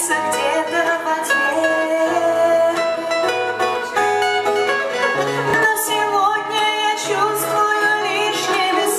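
Live band music with plucked strings over a steady bass line, held notes and a melody that bends in pitch, with no sung words.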